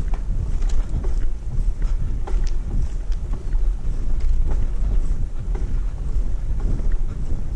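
Wind buffeting the microphone, a heavy, gusty rumble, with scattered light clicks and taps through it.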